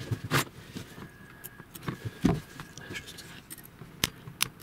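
Scattered small clicks and taps of hand work at a circuit board: a soldering iron tip and a thin copper wire being set against the solder pads while a fuse wire is soldered in, with a slightly heavier knock about halfway through and a quick run of clicks near the end.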